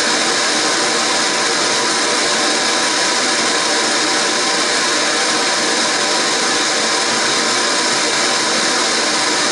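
Pink noise played as a test signal through a Diamond Audio MS65 Neo 6.5-inch mid-range speaker in a motorcycle fairing pod, for a frequency-response measurement: a loud, steady, even hiss, thin in the deepest bass. It starts just before and cuts off suddenly about a second after.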